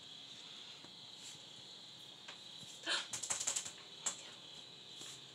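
Kitten scratching in loose granular litter in a plastic litter box: a quick burst of rattling scratches about three seconds in, then one more scrape about a second later.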